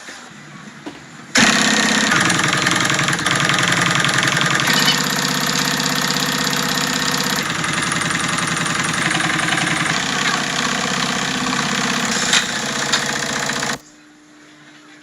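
Homemade chisel grinder's motor running loudly, with a harsh grinding noise over its hum. It starts suddenly about a second and a half in and cuts off abruptly near the end.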